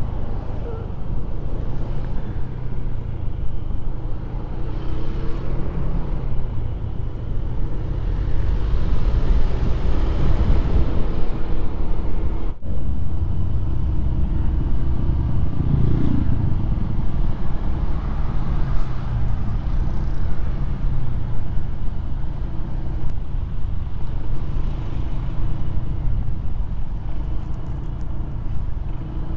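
Honda PCX 160 scooter's single-cylinder engine running steadily while riding in slow city traffic, a continuous low rumble with a brief break about halfway through.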